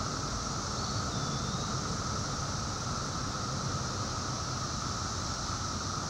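Steady chorus of 17-year periodical cicadas (Magicicada, Brood XIII), a continuous droning buzz that holds level without a break.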